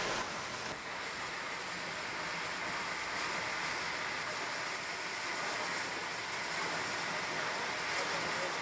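Union Pacific 844, a 4-8-4 Northern steam locomotive, standing with steam hissing steadily from beneath it.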